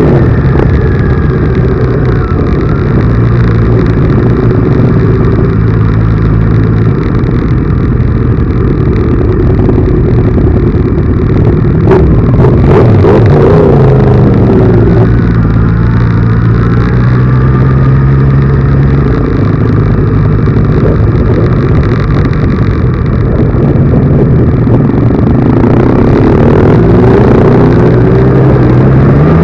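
Vehicle engine running loud and steady under way. Its pitch falls and rises about halfway through and climbs again near the end, as with throttle and gear changes.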